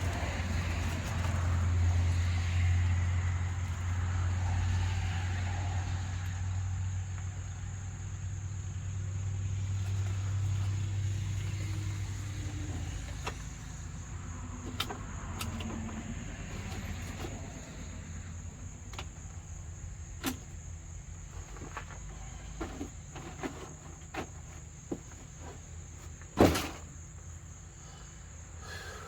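Stihl FS111R trimmer engine idling with a steady low hum, then dying away about twelve seconds in. After that come scattered light clicks and one sharp knock near the end.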